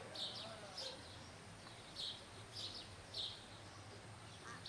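A bird chirping repeatedly: short, high chirps every half second or so, with a longer gap in the middle, over a faint steady outdoor hum.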